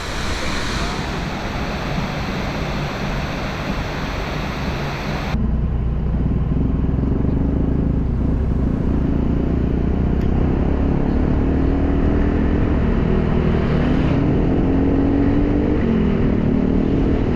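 A waterfall's steady rushing roar. About five seconds in it cuts abruptly to a motor vehicle engine running, with a heavy low rumble and a pitch that wavers up and down.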